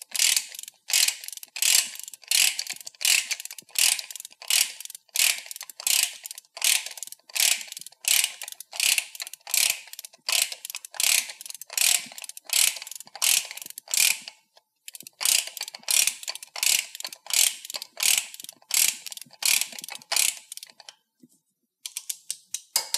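Ratcheting torque wrench clicking in steady back-and-forth strokes, about two to three a second, as it tightens a truck hub's Zip-Torq spindle nut toward 200 ft-lb to seat the wheel-end seal. The strokes pause briefly about two-thirds of the way through, thin out, then come in a quick run near the end.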